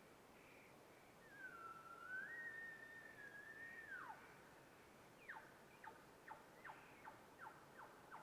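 Faint bull elk bugle: a high whistled note that rises and holds for about three seconds before dropping away, followed by a string of about seven short falling chuckles, roughly two a second.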